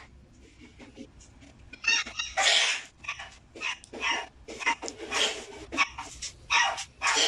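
Feral kittens hissing and spitting in anger, a run of short sharp hisses starting about two seconds in and repeating every half second or so.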